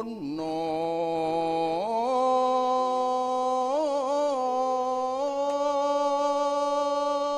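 A single voice singing one long drawn-out note of a Javanese campursari song. The pitch slides up about two seconds in, wavers briefly through an ornament near the middle, then holds steady.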